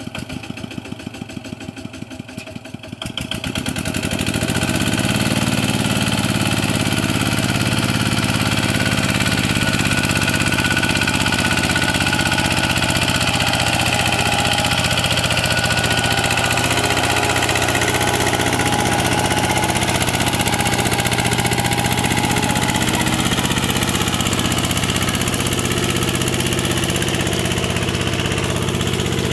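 Two-wheel walking tractor's single-cylinder diesel engine, chugging at a lower level at first, then revving up about three seconds in and running loud and steady under load as it hauls a loaded trailer through deep mud.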